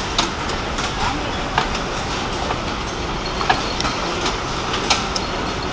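Many tobacco-leaf processing machines running together on a factory floor: a steady mechanical clatter with sharp, irregular clacks about once a second.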